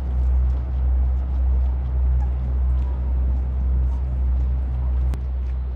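Low, steady engine rumble of a passing river water bus, swelling and fading about twice a second.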